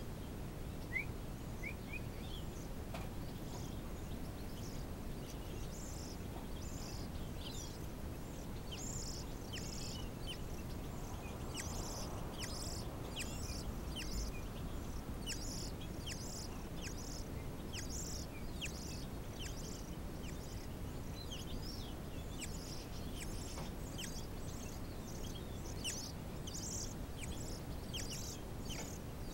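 Songbird nestlings begging to be fed, with short high, thin chirps repeating about twice a second from about six seconds in, over a steady low background rumble.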